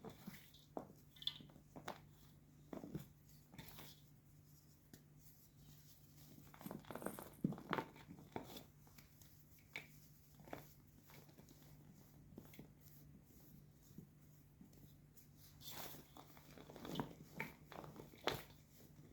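White gym chalk being crushed: scattered soft crunches and crackles, bunched about seven seconds in and again near the end, with quieter stretches between. A faint steady hum sits underneath.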